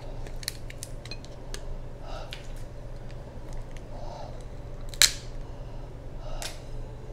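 Shellfish claw shells being cracked and picked apart by hand: scattered crisp clicks and snaps, with one sharp loud crack about five seconds in.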